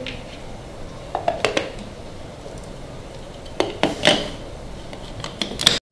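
Plastic blender jar and lid being handled and the lid pressed into place, giving a handful of light plastic clicks and knocks; the loudest come around four seconds in. The blender motor is not running.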